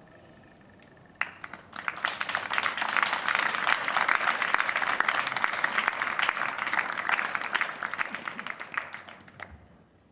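An audience applauding: a few claps about a second in, swelling into full applause, then dying away shortly before the end.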